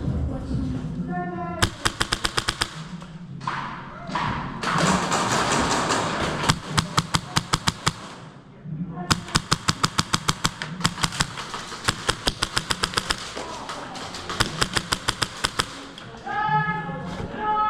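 Airsoft guns firing repeated rapid full-auto bursts, sharp clicking shots several times a second, with pauses between the bursts. Voices can be heard at the start and near the end.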